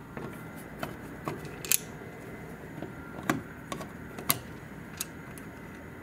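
Flat-head screwdriver backing the screws out of a light-switch cover plate: scattered small clicks and ticks of the tip, screws and plate, with a few sharper clicks.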